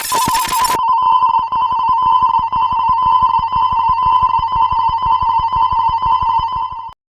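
Electronic warning bell ringing with a fast-trilling tone and rapid even ticking, like a telephone ringer, sounding as an animated level crossing's alarm. A noisy music burst fades out under it in the first second, and the ringing cuts off suddenly near the end.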